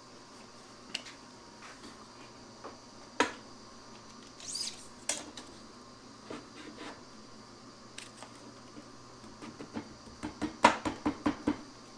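Workshop handling noises: scattered clicks and knocks of tools and wood being handled, a short squeak about halfway through, then a quick run of about eight taps near the end.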